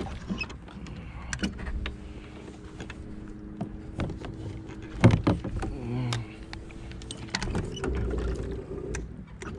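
Small electric trolling motor on a kayak running with a steady whine, its pitch shifting higher near the end. Scattered knocks and clunks of gear against the kayak hull, the loudest about halfway through.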